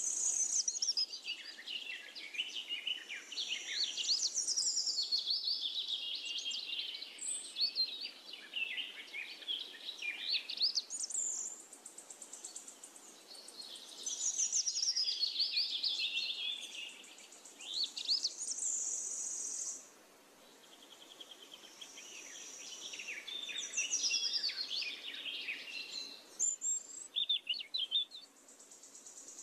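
Birds singing in repeated bursts of rapid, high warbling phrases a few seconds long, some sliding down in pitch, with a steady high buzz behind some of them.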